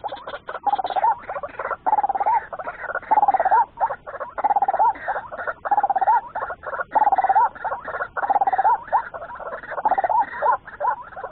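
White-breasted waterhen ('ruak-ruak') calls, a harsh croaking 'kruak' repeated about once a second, each call ending in a quick upward hook in pitch.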